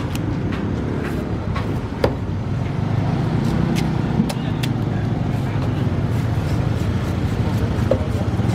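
Motor scooter engine idling close by, a steady low hum, with a few sharp knocks from the knife on the wooden cutting block and voices in the background.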